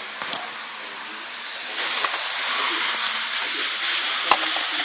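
A steady hiss that grows louder about two seconds in, with a sharp click near the start and another near the end.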